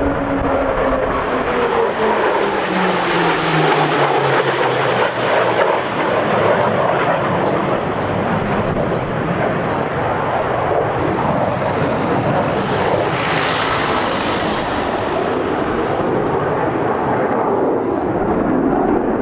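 Chengdu J-20 twin-engine stealth fighter's jet engines passing, a falling pitch over the first few seconds, then a steady, loud jet roar with a brief surge of hiss a little past the middle.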